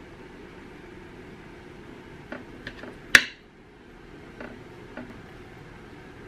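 Metal spoon clinking and scraping against a ceramic bowl while stirring food: a few light clicks, then one sharp clink about three seconds in, and two softer taps later.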